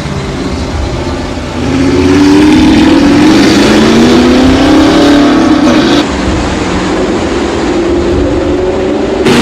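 Audi R8's 4.2-litre V8 with an aftermarket exhaust, accelerating with its pitch climbing for a few seconds, then cut abruptly to another stretch of steady engine and exhaust sound.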